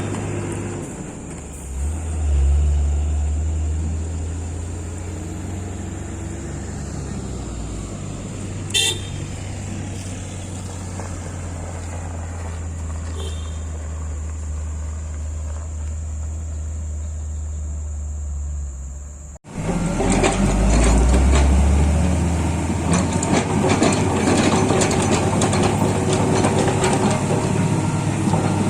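Heavy-equipment diesel engine running steadily at a low pitch, with one short sharp click about nine seconds in. About two-thirds through, the sound cuts abruptly to a louder, rougher stretch of engine with dense clattering.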